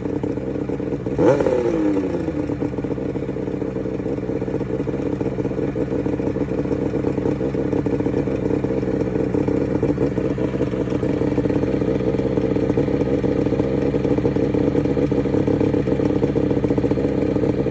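Suzuki GT380 two-stroke three-cylinder motorcycle engine idling, with one quick throttle blip about a second in that rises and falls in pitch. It is being run to check for a suspected abnormal noise from the engine.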